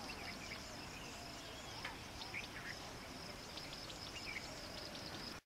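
Faint natural ambience: a steady high insect drone with scattered short bird chirps. It cuts off suddenly at the very end.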